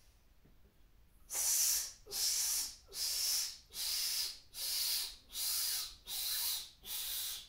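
A man's stepped yogic cleansing exhalation: after a quiet inhale, he breathes out with a hissing "sss" through the teeth in eight short pushes, about one every three quarters of a second.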